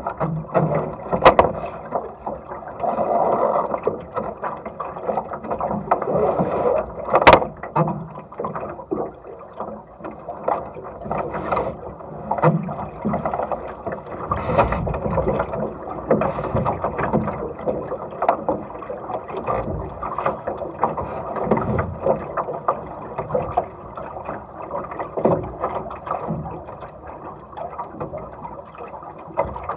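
Water rushing and slapping along the hull of a small sailing dinghy under way, rising and falling with the waves, with a few sharp knocks, the loudest about 1 s and 7 s in.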